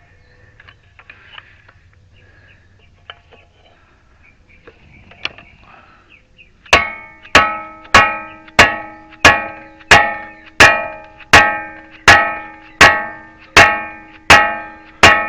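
Faint clinks of metal tools being handled, then a hammer striking steel about thirteen times at a steady pace of roughly one and a half blows a second, each blow ringing on and fading. The blows are driving a front wheel bearing into the steering knuckle, and it is going in hard.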